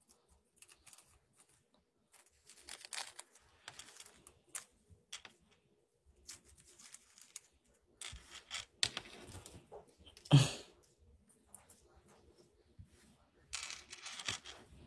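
Scattered rustling and small clicks of handling noise close to the microphone, with one louder thump about ten seconds in.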